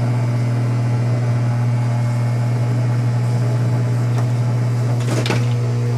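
Rewound microwave oven transformer humming loudly under a heavy short-circuit load, a steady low mains buzz with a strained, rough edge as it drives hundreds of amps through a thick piece of metal. A brief crackle comes about five seconds in.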